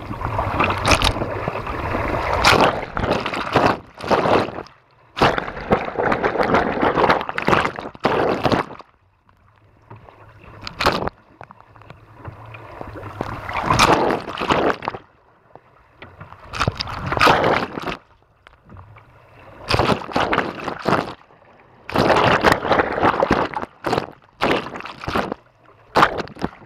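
Lake water splashing and gurgling against a small boat's bow and over a camera at the waterline, in irregular surges a few seconds long with sharp splash cracks and quieter gaps between.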